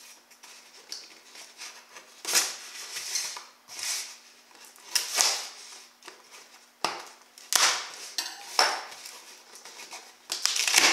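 Kitchen knife slitting the packing tape on a cardboard box in a series of short strokes, then the box's cardboard flaps pulled open near the end.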